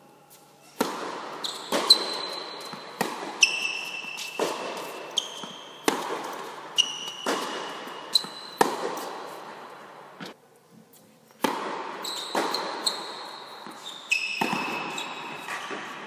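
Tennis balls being struck by rackets and bouncing on a hard court during a rally, a sharp pop every half second to second, many followed by a high ringing ping, all echoing in a large indoor hall. It opens with a serve about a second in, and the hitting pauses for about a second past the middle before the next point starts.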